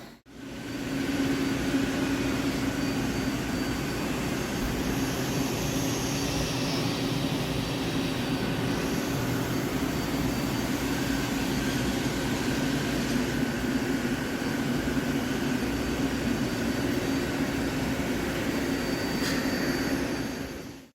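Heavy CNC lathe running steadily: a constant machine hum with hiss over it, dropping out briefly just after the start.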